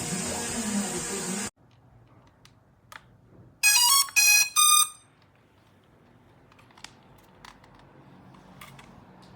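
Background music stops abruptly, then three quick, loud electronic beeps sound in a rapid group, each a short stepped tone. A few faint clicks follow.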